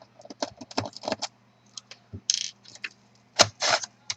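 Clicks, taps and short scrapes of hand tools and laptop plastic being handled while the laptop's optical drive is taken out, with a longer scrape about two seconds in and another near the end.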